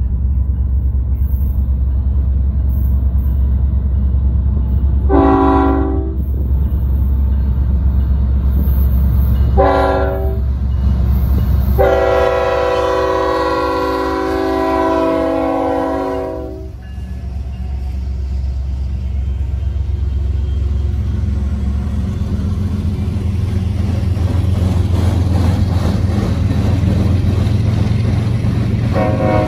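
Union Pacific diesel freight locomotive's air horn sounding a multi-note chord: two short blasts, then a long blast of about four seconds, with another starting at the very end, sounded for the grade crossing. Under it runs the steady low rumble of the diesel locomotives and the rolling train.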